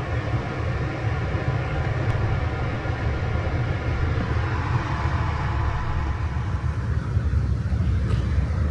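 Steady low rumble with road noise, like a vehicle driving, heard from inside.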